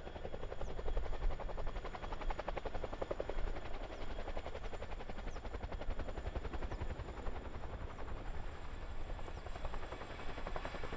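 CH-47D Chinook tandem-rotor helicopter flying past, its rotor blades beating in a rapid, even pulse.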